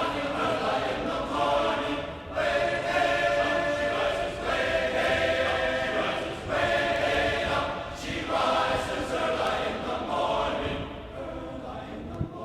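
A group of voices singing together in phrases of about two seconds each, growing quieter near the end.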